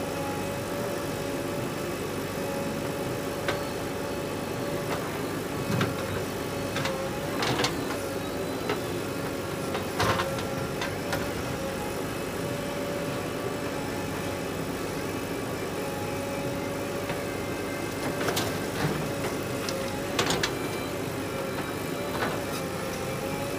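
Diesel engines of a JCB 3DX backhoe loader and a tractor running steadily, with a steady hum, while soil is loaded into the tractor's trolley. Sharp knocks and clanks come several times.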